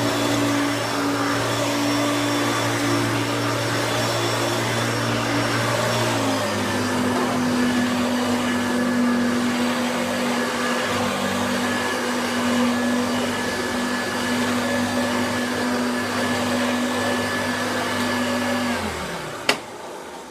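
Hoover Turbo Boost upright vacuum cleaner running steadily on its high setting, its motor pitch stepping up slightly about six seconds in. Near the end it is switched off and the motor winds down with a falling tone, followed by a sharp click.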